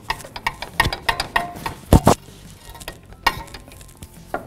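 Metal hand tools clicking and clinking as the nut on a sway bar end link is tightened with a wrench while the link's stud is held with a hex key on an extension. Irregular clicks throughout, with one louder clack about two seconds in.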